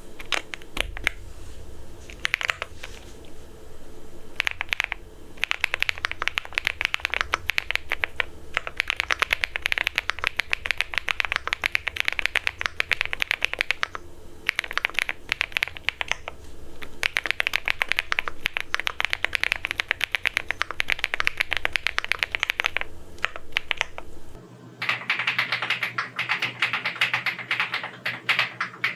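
Rainy75 75% mechanical keyboard with its stock switches being typed on fast, in runs of rapid key clicks broken by short pauses.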